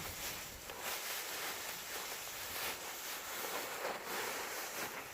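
Dry rice stalks rustling and swishing as the grain is threshed off by hand, with a few faint irregular ticks over a steady windy hiss.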